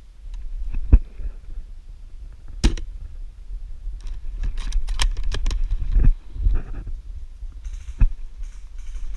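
Handling noise from an airsoft sniper rifle with a camera mounted on it: low rumbling and a string of sharp clicks and knocks, several of them close together around the middle.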